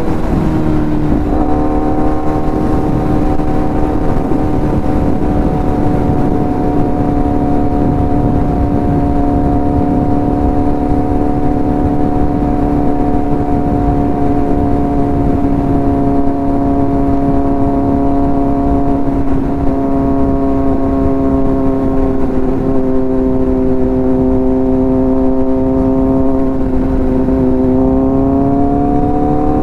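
Kawasaki Z900's inline-four engine, heard through its aftermarket exhaust, holding a steady drone as the bike cruises, over a constant rush of wind noise. The pitch drops and recovers about a second in with a gear change, sags slowly, then climbs near the end as the throttle opens.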